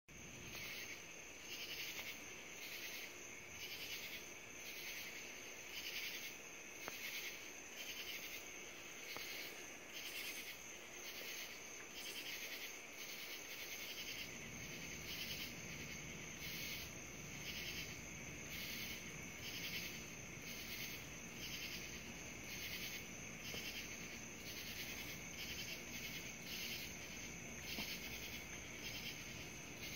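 Night insect chorus of crickets and other insects: a high chirring that pulses about twice a second over a steady high trill. A low steady rumble comes in about halfway through.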